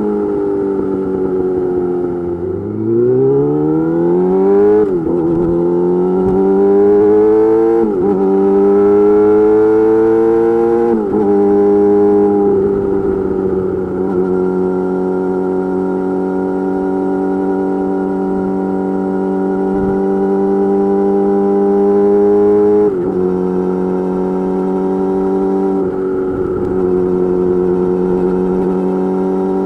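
Yamaha YZF-R6 inline-four sport bike through an M4 GP slip-on exhaust. The engine note falls briefly, then the bike accelerates up through the gears, with upshifts about 5, 8 and 11 seconds in. It then settles into a steady cruise, with two short dips in revs near the end.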